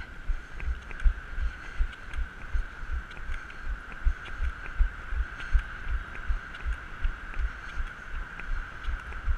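Deep, even thumping at about three beats a second, the jolting rhythm of running on crutches, over a steady high hum.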